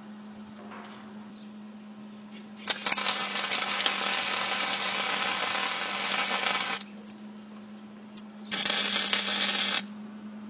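Stick welder's arc crackling and sizzling as a weld is laid. It comes in two runs: about four seconds starting nearly three seconds in, then a shorter run of about a second near the end. A steady low hum sits underneath.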